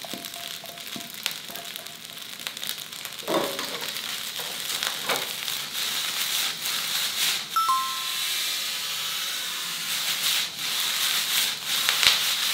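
Rice frying in a hot iron wok pan: a steady sizzle with the ladle clicking and scraping against the iron as it stirs and tosses, livelier after about three seconds. A brief bright ring sounds a little past halfway.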